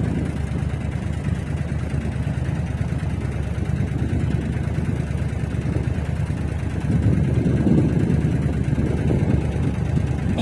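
Motorboat under way: its engine running steadily with the rush of water and wind, getting a little louder about two-thirds of the way through.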